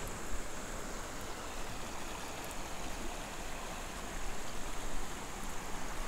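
Shallow creek water rushing over bedrock ledges and rocks: a steady wash of running water.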